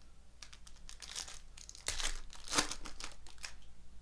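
Foil wrapper of a baseball card pack being torn open and crinkled, a run of crackling that is loudest about two seconds in.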